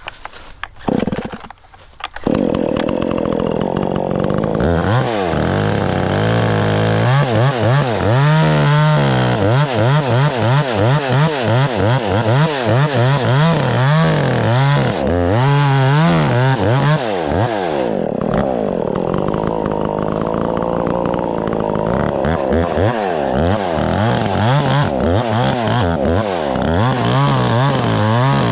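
Two-stroke chainsaw that starts about two seconds in, then runs at high revs cutting into a tree trunk, its pitch rising and falling with throttle and load. It is making the felling cut, the back cut behind the hinge, on a tree under rope pre-tension.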